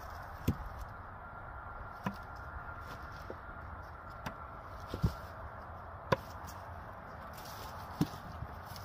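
Sharp wooden knocks of a short-handled hand tool striking firewood rounds, about eight spread irregularly, the loudest about six seconds in.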